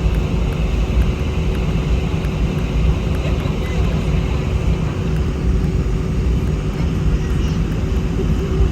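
Cabin noise inside an Airbus A319 on the ground with its jet engines running: a steady low rumble with a constant thin hum over it, and no change in level.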